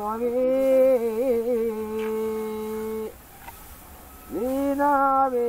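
A single voice singing a slow traditional Sinhala harvest verse (kavi), holding long notes with small ornamented wavers. The phrase breaks off about three seconds in, and a new one starts with an upward slide a little over a second later.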